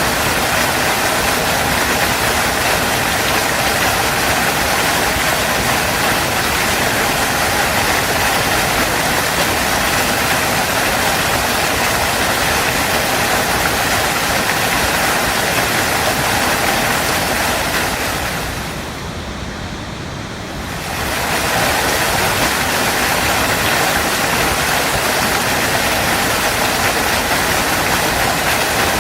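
Waterfall, a steady full rush of falling water. About two-thirds of the way through it drops for a couple of seconds, quieter and duller, then comes back at full strength.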